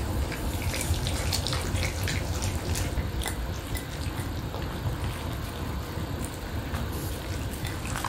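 Pomeranians eating: wet chewing and licking, with many small irregular clicks and smacks from their mouths, including lapping from a small metal bowl.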